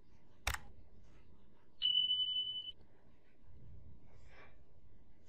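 A single sharp click, then about a second later a steady, high-pitched electronic beep on one pitch lasting just under a second. A faint brief rustle follows near the end.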